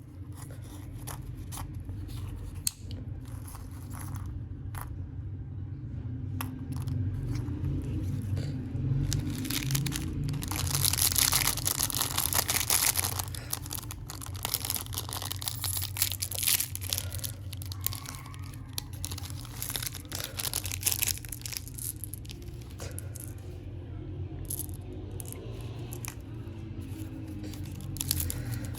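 A chocolate bar's wrapper being torn and crinkled open by hand: scattered crackles and clicks, with a louder stretch of tearing about ten seconds in. A steady low rumble runs underneath.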